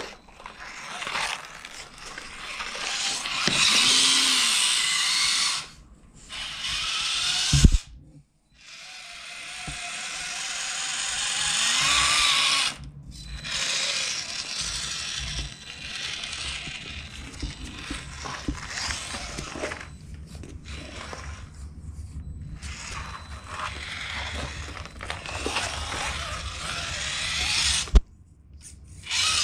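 The small electric motor and geared drivetrain of a Redcat Ascent-18 RC crawler whir in stop-start bursts as the throttle is worked, with short pauses a few times. A few sharp knocks come through as it clambers over obstacles, the loudest a little before the eight-second mark.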